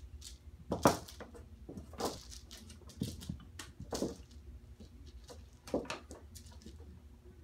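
Kittens leaping and batting at a toy hanging from a closet door, striking the door: a string of irregular knocks and thumps, the loudest about a second in.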